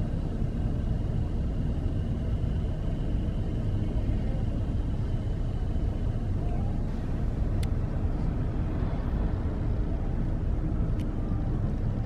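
Steady low rumble of a car, heard from inside its cabin, with a faint steady high tone through the first half and a couple of faint clicks later on.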